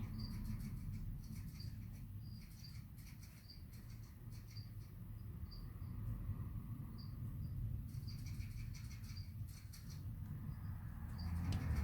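A young club-tailed iguana crunching a locust: irregular crisp clicks and crackles as it chews through the insect's hard shell. Short faint high chirps sound over a low rumble.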